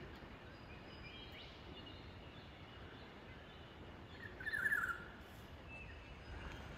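Wild birds calling in the bush over a steady low background hiss: faint, thin calls throughout, with one brighter call of about half a second a little past the middle.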